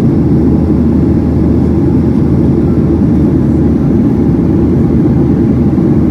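Cabin noise of a Boeing 737 airliner in cruise flight, heard from a window seat over the wing: a loud, steady low rumble of the jet engines and airflow.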